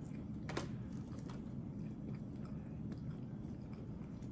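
Quiet eating sounds: soft chewing and mouth noises with one sharp click about half a second in and a few fainter ticks, over a steady low hum.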